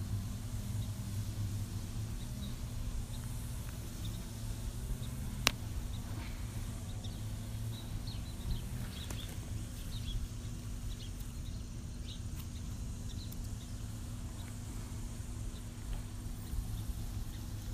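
A steady low hum with faint, short high-pitched ticks scattered through it, and one sharp click about five and a half seconds in.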